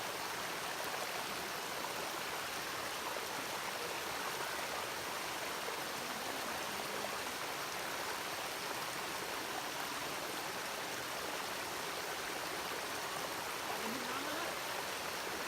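Steady rush of water flowing over the rocks of a waterfall and stream, an even hiss that holds at one level.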